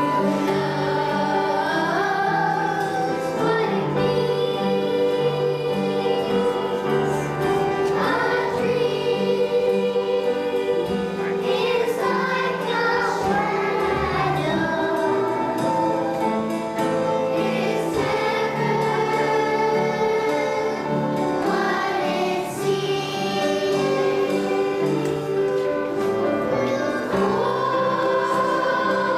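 Choir singing with instrumental accompaniment, a steady flowing song with sustained chords.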